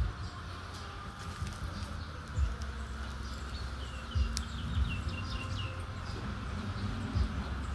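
Outdoor rural ambience: birds chirping, with a quick run of short falling chirps a few seconds in, over a steady insect hum, and irregular low thumps and rumble.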